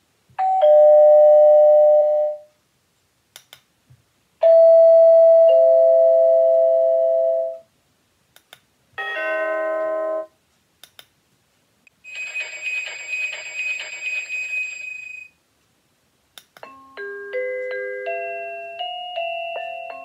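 Byron DBY-22311 portable wireless doorbell chime playing one ring tune after another as its tune-select button is pressed: two two-note ding-dongs, a short chord, a buzzy high ringing tone, then a quick multi-note melody near the end. Short clicks come in the gaps between tunes.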